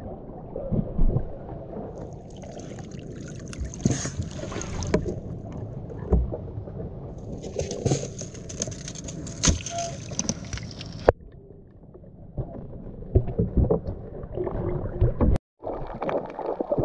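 Water sloshing and lapping around a small wooden outrigger boat, with scattered knocks from handling in the hull. After a brief break near the end, the muffled rush of water through an underwater camera.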